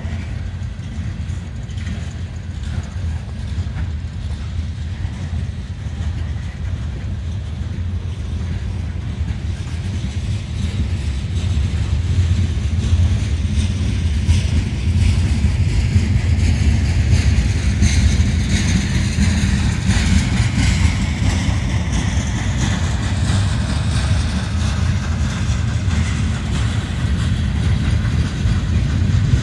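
Norfolk Southern freight train's covered hopper cars rolling past on the rails, a steady low rumble that grows louder, with more wheel-on-rail noise, in the second half.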